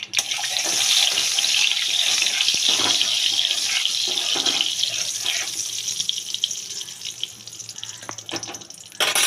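Hot oil sizzling in a kadai as a spatula spreads it around the pan, a dense steady hiss that thins out over the last few seconds. A few light spatula clicks come near the end.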